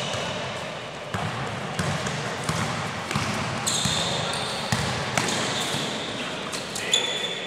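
Indoor football pickup game on a hard court in a large sports hall: the ball being kicked and bouncing in repeated sharp knocks, short high squeaks from the players' movement on the floor, and players calling out.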